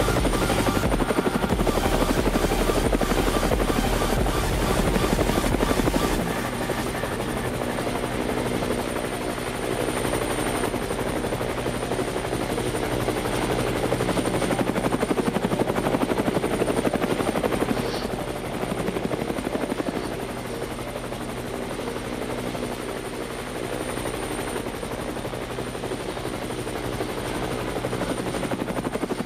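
Steady helicopter-like whirring of a spinning rotor over a continuous motor hum. A deep low rumble under it drops away about six seconds in.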